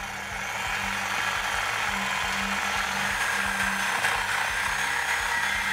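Reciprocating saw with a thin-kerf metal-cutting blade running steadily as it saws through a factory exhaust pipe.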